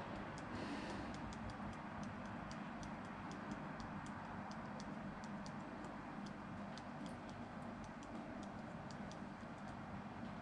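Typing on a smartphone touchscreen keyboard: short irregular clicks, a few per second, over a steady low hum.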